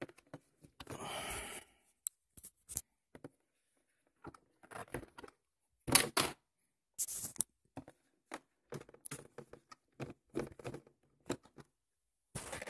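Hands working the wire body clips out of the RC car's hood posts and handling the plastic body shell: irregular clicks, taps and short rustles, the loudest about six seconds in.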